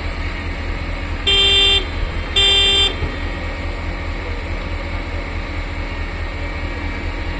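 Two short horn toots from a yellow track-laying machine, about a second apart, a single pitched note each time. A steady low rumble runs underneath.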